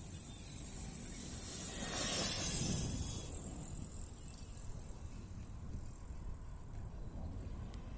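Wind buffeting the microphone with a steady low rumble, and a louder hissing rush that swells about two seconds in and fades a second later.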